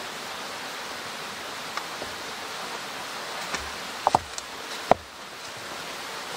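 Steady hiss with a few light clicks, then a cluster of sharper clicks about four seconds in and a single sharp knock just before five seconds, as things are handled on dry leaf litter by a rock.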